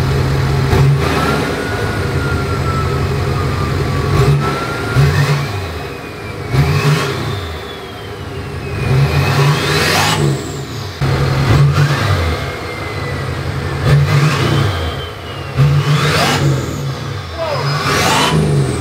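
Nissan Titan XD's Cummins V8 turbo-diesel, straight-piped with its particulate filter, SCR and catalytic converter removed, being revved again and again from idle, about every two seconds, really loud. A turbo whistle rises and falls with each rev.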